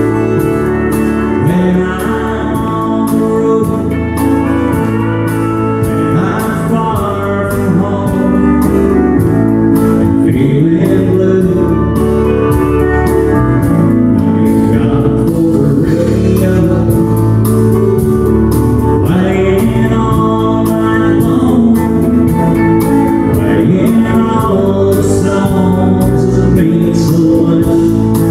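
Live country band playing: strummed acoustic guitar over drums, with a pedal steel guitar.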